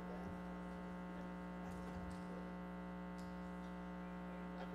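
Steady electrical hum, a low buzz with many overtones, with a few faint small ticks scattered through it.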